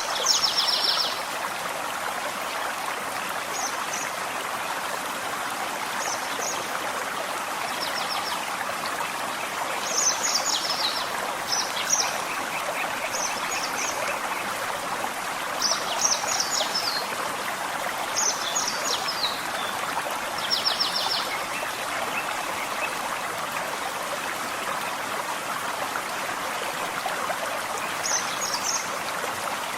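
Gentle forest stream flowing steadily, with small birds singing short high chirping phrases every couple of seconds over the water, falling quiet for a few seconds near the end.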